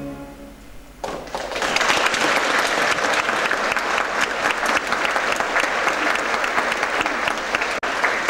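Audience applause: the last notes of the orchestral music die away, and about a second in dense clapping breaks out and carries on steadily. The sound drops out briefly near the end.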